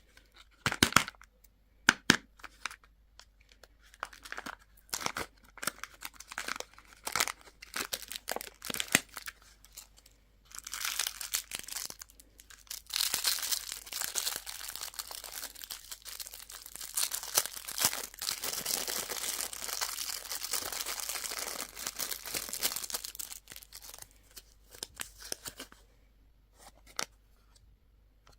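Plastic candy wrappers crinkling and tearing as lollipops and surprise toys are unwrapped: a run of sharp separate crackles, the loudest about one and two seconds in, then from about ten seconds in a long spell of continuous crinkling that thins out to a few crackles near the end.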